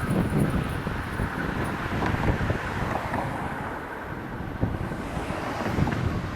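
Wind buffeting the microphone over the low, fading rumble of a train that has just gone through the level crossing.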